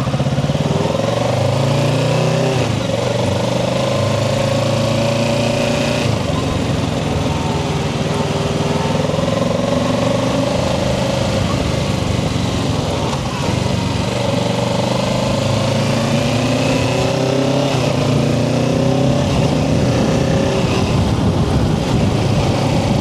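Kawasaki Ninja 650's parallel-twin engine running under way, its pitch climbing and dropping several times as the bike accelerates and changes speed, over a steady rush of wind noise.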